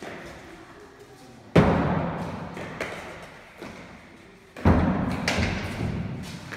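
Hard pelota ball struck bare-handed and rebounding off the walls of an indoor trinquet court. Two loud smacks come about a second and a half and four and a half seconds in, each ringing on in the hall's echo, with lighter knocks between.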